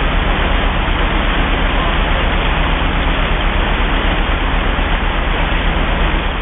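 Steady rushing noise of water churning past the hull of a ship under way, over a low steady hum from its engines.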